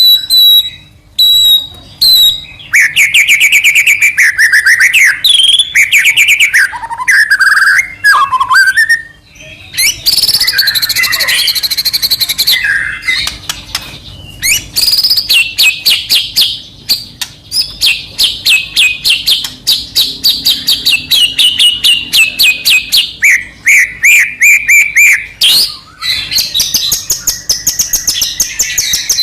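White-rumped shama singing a varied song: warbled, rising and falling whistled phrases, then long runs of fast repeated notes.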